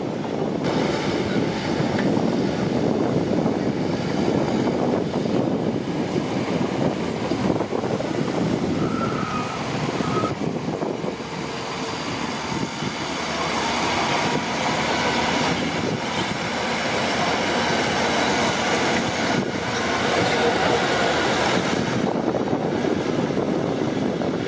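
Crawler bulldozer at work, its diesel engine and steel tracks running steadily, dipping slightly for a moment just before halfway.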